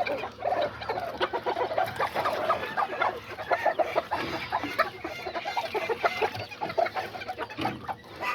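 A flock of kikiriki chickens, roosters and hens, clucking and calling, many short overlapping calls without a break.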